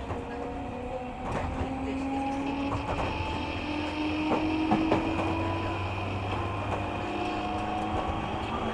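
Running sound inside a JR 205 series electric train: the whine of the traction motors and gears rises steadily in pitch as the train gathers speed, over a low rumble with scattered clicks from the wheels and rails.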